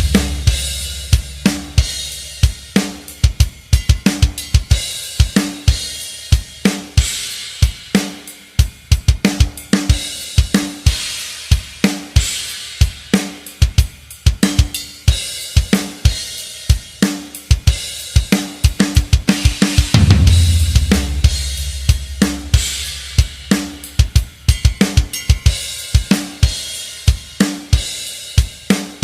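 Drum kit playing alone, with no other instruments: kick, snare, hi-hat and cymbals in a steady, driving rock beat. A heavier low boom comes near the start and again about two-thirds of the way through.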